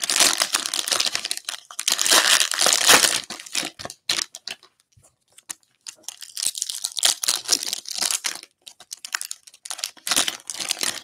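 Plastic wrapper of a Topps Chrome baseball cello pack being torn open and crinkled by hand, crackling in bursts with a short lull about four seconds in.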